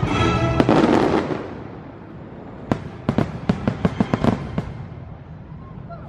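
A fireworks display: the show's music rings out and fades about a second in, then a quick string of a dozen or so sharp firework cracks and pops follows over a couple of seconds.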